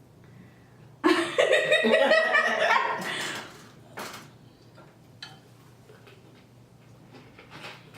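A burst of laughter lasting about two seconds, starting about a second in, followed by a single sharp click.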